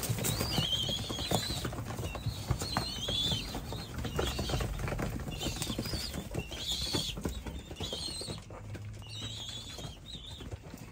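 A flock of racing pigeons flapping and shuffling about a wooden loft, with wing claps and knocks of wings and feet on the wood. Short, wavering high-pitched squeaky calls come roughly once a second.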